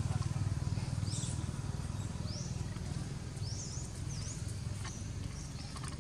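About half a dozen short, high-pitched chirps, mostly quick upward or up-and-down glides, scattered over a steady low rumble.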